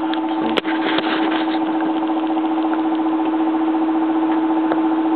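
Steady electric motor or fan hum with a single sharp click a little over half a second in.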